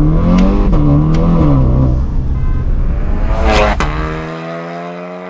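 Tuned Skoda Octavia vRS 245's turbocharged 2.0-litre four-cylinder engine pulling hard, its pitch rising and dropping as it revs, with a brief whoosh about three and a half seconds in.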